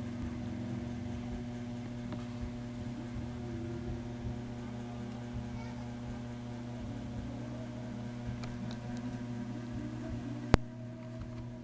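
Steady electrical hum, with one sharp click near the end.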